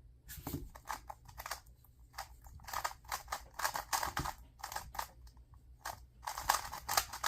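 Plastic 2x2 speed cube being turned quickly by hand: rapid irregular clicking of its layers, easing off briefly about six seconds in, then picking up again.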